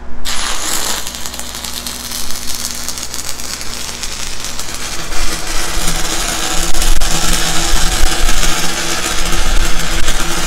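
Stick-welding arc from a 6010 electrode crackling and spitting while it runs a full-penetration root bead on steel pipe; the arc strikes right at the start and burns without a break. A steady low hum runs underneath.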